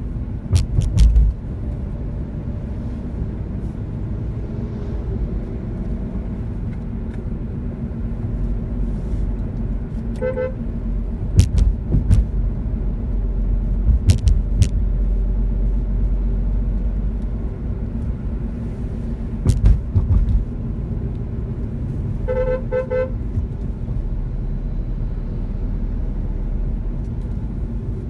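Steady engine and road rumble heard from inside a moving car, with several sharp clicks and knocks. A vehicle horn gives short beeps about a third of the way in and a quick triple beep about two-thirds of the way through.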